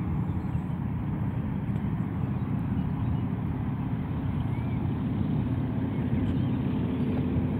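Antonov An-2's nine-cylinder radial engine running at takeoff power as the biplane climbs away after lift-off, a steady low drone.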